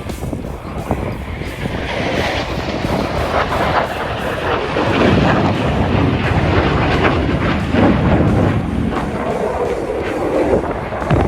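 Loud, rumbling roar of jet aircraft, swelling about five seconds in and again near eight seconds as the jets pass.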